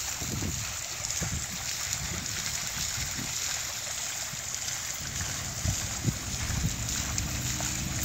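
Three urn fountains bubbling over at their tops, the water sheeting down their sides and splashing onto the pebbles below in a steady rush.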